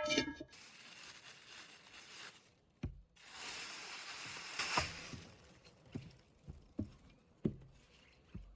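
Rustling, crinkling handling noise during food preparation, in two stretches of a couple of seconds each, followed by a few light knocks about a second apart.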